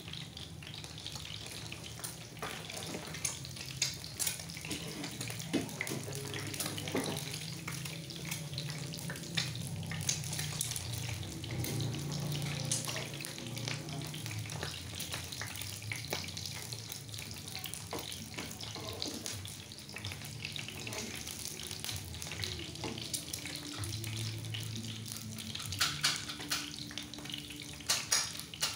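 Eggs frying in oil in a pan, a steady sizzle, with scrapes and taps of a black spatula against the pan as the eggs are turned and pushed about. The taps come more often near the end.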